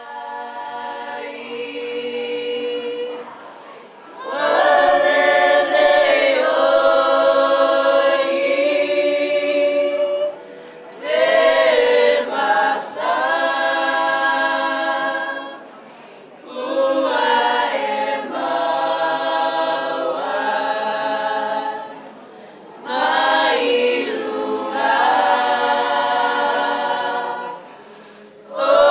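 A choir singing unaccompanied. It comes in softly, then sings full held phrases broken by short pauses every five or six seconds.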